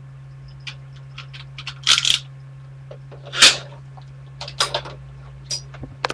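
Scattered clicks and clinks of small hard objects being handled, with a louder rattle about two seconds in and another about three and a half seconds in, over a steady low electrical hum.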